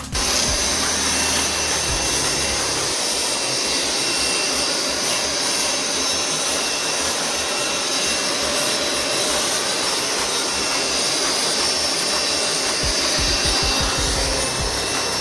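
Troy-Bilt electric leaf blower running steadily at full speed: a loud rush of air with a high whine from its motor and fan. The blower has been freshly fitted with a new 608Z bearing after its old one was destroyed.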